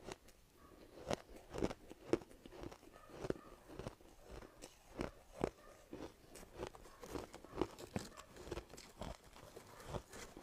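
Soft ice being bitten and chewed: a steady run of irregular crisp crunches, a few each second.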